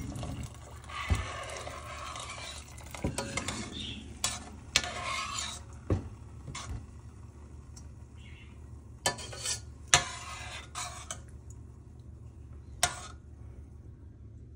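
A spoon stirring salt and black pepper into a pot of white beans: scraping in spells, with about ten sharp taps of the spoon against the pot, over a steady low hum.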